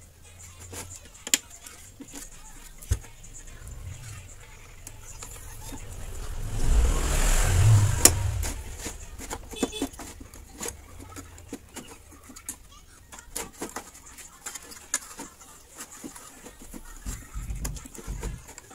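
Scattered clicks and light knocks from hands working on the circuit board and wiring inside an opened CRT television. A low rumbling noise swells and fades about six to eight seconds in.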